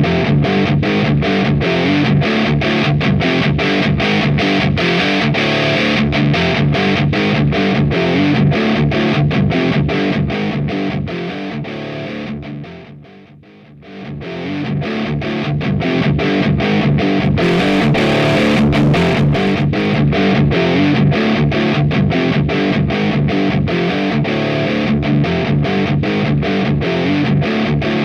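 Heavily distorted electric guitar through an AMT Bricks R/S Lead 12AX7 tube preamp, playing a looped metal riff of rapid, evenly spaced chugs. About halfway through, the sound fades almost to nothing, then swells back in and the riff carries on.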